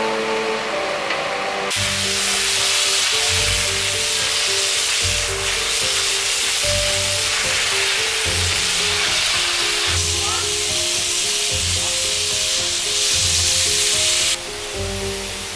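Water jet from a fire hose hissing as it sprays, starting suddenly about two seconds in and cutting off near the end, under background music.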